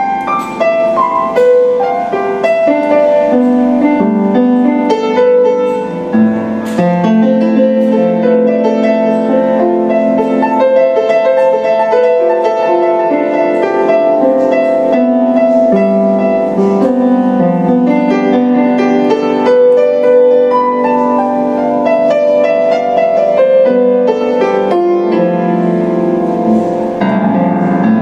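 Piano music, with held notes and chords changing every second or so.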